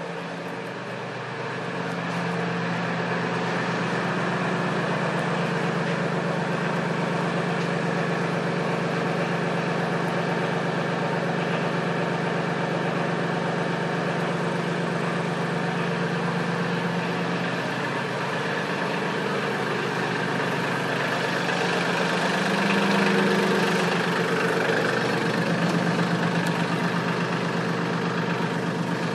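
Diesel engine of a Mahindra 1526 compact tractor running steadily, with a brief rise in engine sound about three-quarters of the way through.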